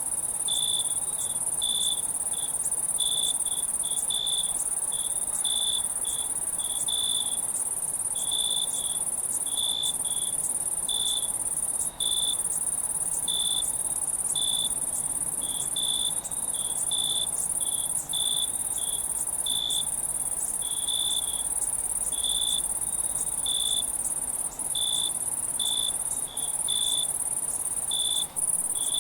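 Crickets chirping in a night-time ambience: a continuous high trill with a separate, lower chirp repeating about twice a second.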